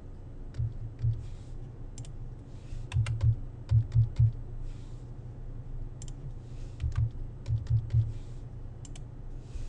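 Computer keyboard keys tapped in short quick runs of a few strokes, typing numbers into form fields.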